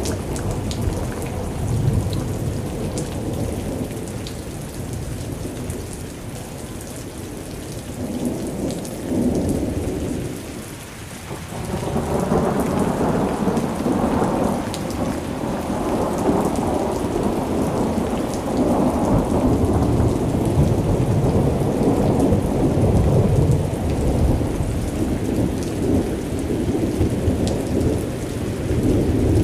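Thunderstorm: steady rain with long, rolling thunder rumbles. The rumble fades about ten seconds in, then a new roll builds and carries on.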